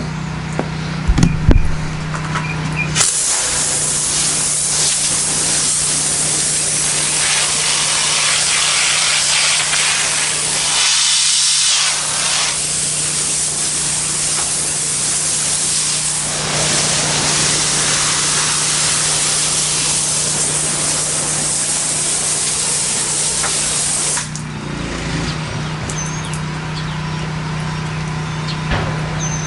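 Pressure washer spraying water at low pressure onto the tiled porch: a steady hiss that starts about three seconds in and cuts off about five seconds before the end. Under it the pressure washer's engine runs with a steady hum.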